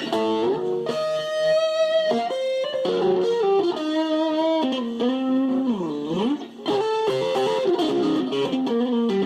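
Stratocaster electric guitar playing a single-note lead line, with a deep pitch dip down and back up about six seconds in.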